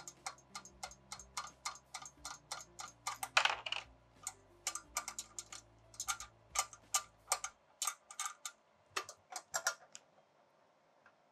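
Ratchet wrench clicking steadily, about four clicks a second, as it backs a nut off the end of a clamp-on flow meter's precision mounting frame, with a louder burst a little over three seconds in. The clicking stops about ten seconds in.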